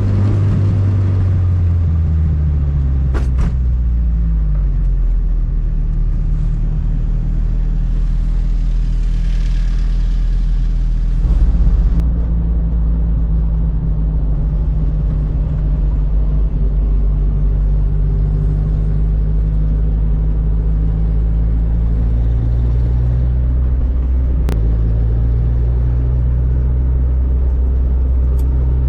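Fiat 600 with a swapped-in 1.6-litre engine running at motorway speed: the engine note falls over the first few seconds, then holds steady at cruise. About two-thirds of the way in there is a brief click and the note drops a little, then steadies again.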